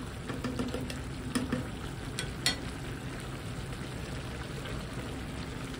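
Rice and chicken stock bubbling in a wide pan over a high flame, the water partly absorbed, while a spatula stirs and turns the rice. A few sharp clicks of the spatula against the pan come between about one and three seconds in.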